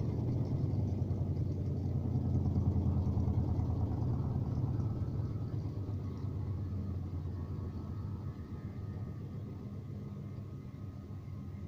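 Gafa 6500 washing machine in its spin cycle, making a steady low rumble with a hum. This is the unusual noise the machine makes when spinning. The rumble eases off gradually.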